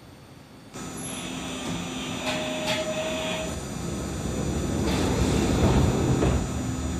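Iyotetsu city tram at the platform: a steady electrical hum with a rumble that swells about five seconds in and eases near the end. A short steady tone sounds about two seconds in.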